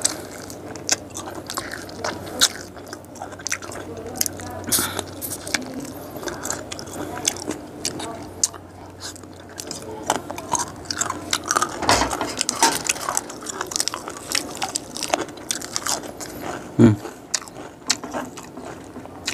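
Close-up chewing and biting of boiled rain frogs eaten whole, with many small, sharp, irregular crunches of the little bones.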